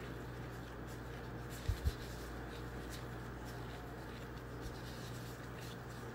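Faint rustling and rubbing of plastic food-prep gloves shaping soft mashed potato into balls, with small clicks, over a steady low hum. Two short, low bumps come just under two seconds in.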